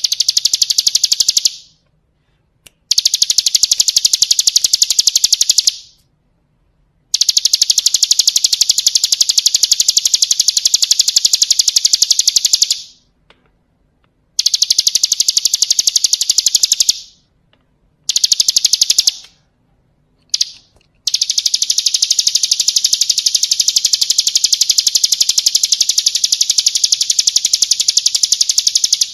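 Ciblek kristal (bar-winged prinia) singing long, rapid, high-pitched trills of quickly repeated notes, in runs of a few seconds broken by short pauses, with the longest run filling the last eight seconds.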